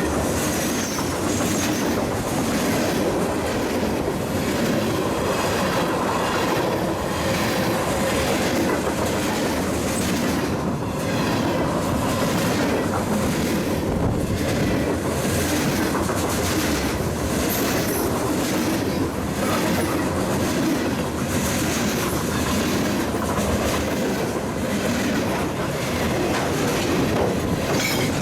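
CSX freight train's cars rolling past at speed, steel wheels clattering in a steady rapid clickety-clack over the rail joints.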